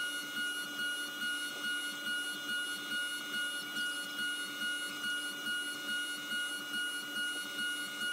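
CNC mill cutting 1018 cold-rolled steel with a 3/8-inch four-flute solid carbide end mill on a trochoidal toolpath: a steady high whine that swells and dips about two to three times a second as the tool loops into and out of the cut.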